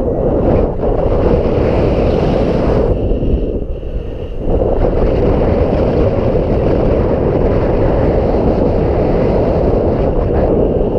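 Strong wind buffeting the microphone: a loud, rough rushing roar that eases briefly about three and a half seconds in, then returns.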